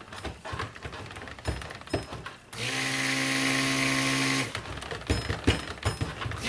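Stick (immersion) blender in a bucket of cold-process soap batter, running in one short burst of about two seconds: its motor hum starts about two and a half seconds in and cuts off sharply. Before and after the burst there are irregular knocks and clicks as the blender head is moved around the bucket with the motor off.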